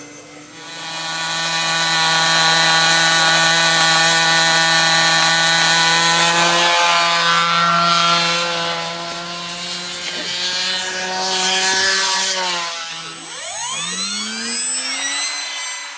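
Control-line aerobatic model aircraft engine running with a steady buzzing note that swells over the first two seconds. Near the end the note falls away, then sweeps upward again.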